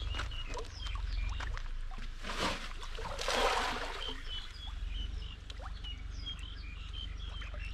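Fish splashing and slurping at the surface of a pond as they take thrown food. There are many small plops, with two louder splashes about two and three seconds in.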